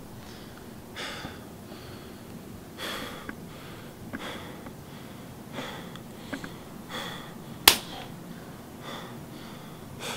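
A man breathing heavily in slow, uneven breaths, about one every one to two seconds. One sharp click near the end is the loudest sound.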